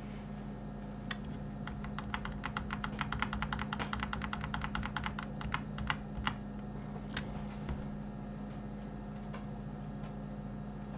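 Rapid clicking of a computer keyboard and mouse: a fast run of key clicks for a few seconds, then a few single clicks, over a steady low hum that runs on alone near the end.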